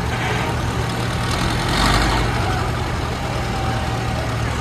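Tractor engine running steadily, with a brief louder rush of noise about two seconds in.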